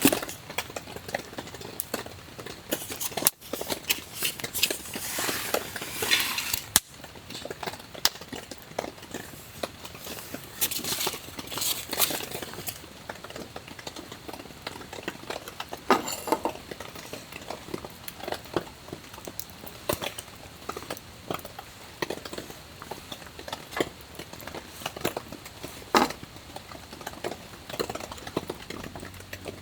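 Wood campfire crackling, with irregular sharp pops and a few louder knocks and clinks, such as camp cookware being handled.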